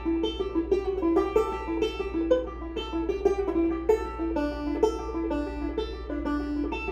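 Instrumental music: a plucked string instrument picking a steady, repeating pattern of quick notes, with a constant low hum underneath.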